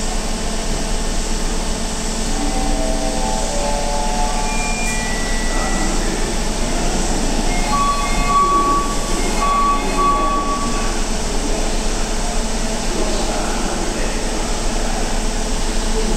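Hokuso Railway 9100 series electric train standing at an underground subway platform, its onboard equipment humming steadily. Short electronic tones sound a few seconds in and again around eight to ten seconds in, while the train's doors and the platform screen doors close.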